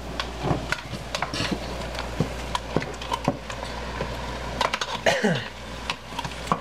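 Cooking utensils knocking and scraping against a skillet and a pasta pot on the stove: a wooden spoon breaking up browning ground turkey and a slotted spoon pushing lasagna noodles into boiling water, in scattered light clicks and taps. A short falling tone comes about five seconds in.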